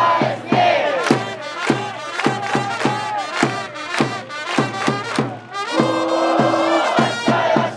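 A baseball cheering section's trumpets playing a player's cheer song over a steady quick drumbeat, with the crowd joining in. A little after the middle the trumpets hold a long note.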